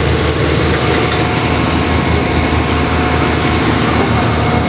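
An engine running steadily at a constant speed, with a fast low throb under a steady hum.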